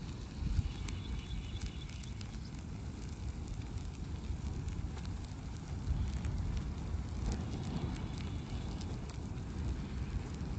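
Open fire burning a recliner: a steady low rumble of flames with scattered crackles and pops.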